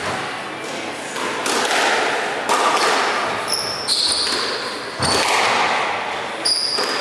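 Squash rally: sharp knocks of the racket hitting the ball and the ball striking the walls, five in a row about every second and a half, echoing in the hall. Short high squeaks of court shoes on the wooden floor come between the shots.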